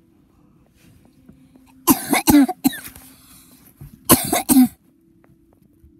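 A person coughing in two short fits about two seconds apart, each a quick run of several harsh coughs.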